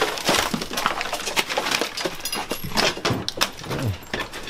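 Clattering and rustling of cardboard boxes, plastic and loose junk being picked up and tossed by hand, a run of short knocks and scrapes.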